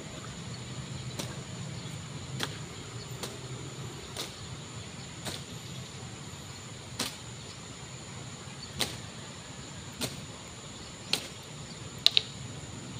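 Outdoor background: a low steady hum and a thin high steady tone, with sharp clicks every second or so, two close together near the end.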